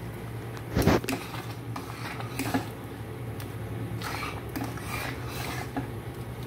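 Metal slotted spoon stirring a thick rice-and-jaggery pudding in a stainless steel pot, with wet squelches and repeated scrapes and clinks against the pot, and one louder knock about a second in. A low steady hum runs underneath.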